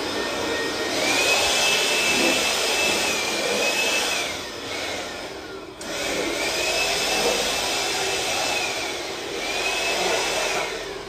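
A high-speed electric motor runs with a whining tone that rises and dips as its load changes, in two long runs. It winds down and starts again abruptly about halfway through.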